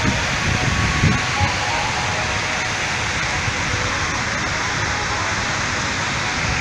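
Chitrakote Falls on the Indravati River: the steady rush of water pouring off the cliffs and splashing into the river. A few low thumps come in the first second or so.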